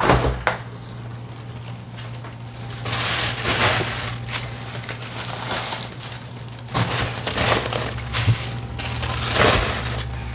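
Side-by-side refrigerator door pulled open with a knock, then plastic grocery bags rustling and crinkling in several bursts as they are packed onto the shelves, over a low steady hum.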